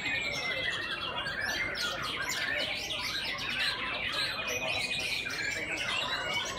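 Many caged white-rumped shamas singing at once: a dense chorus of overlapping clear whistles, sliding notes and rapid chirps and trills.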